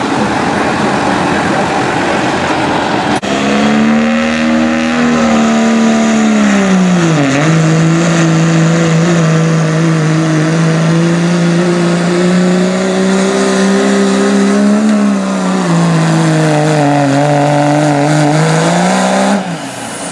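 Dodge Ram pickup's Cummins turbo-diesel pulling a sled at full throttle. The engine note starts about three seconds in and holds high, dips sharply around seven seconds in and again around fifteen, and climbs before dropping off suddenly near the end.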